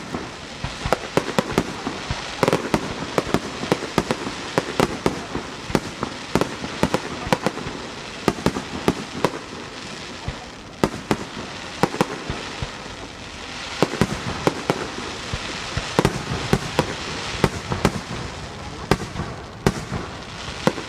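Rapid-fire aerial fireworks (a starmine barrage) going off in quick succession: many sharp bangs and crackling reports close together, thinning for a few seconds about halfway through and again near the end.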